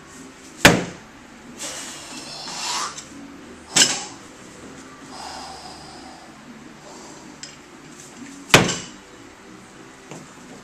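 A barbell loaded with bumper plates knocking on a wooden lifting platform during power snatches: three sharp impacts, about three and five seconds apart. Hard, noisy breathing between the first two.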